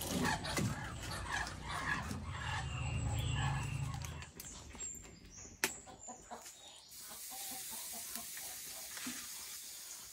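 Chickens clucking over a low rumble for the first few seconds, then one sharp knock about five and a half seconds in. In the last few seconds a steady soft hiss.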